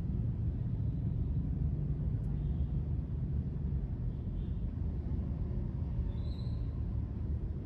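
Steady low rumble of city street traffic, dominated by motorbikes.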